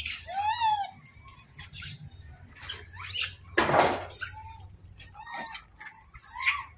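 Rhesus macaques in a crowded feeding troop giving short squeals and screeches: an arched squeal about half a second in and a loud harsh screech near the middle, with smaller squeaks scattered around them.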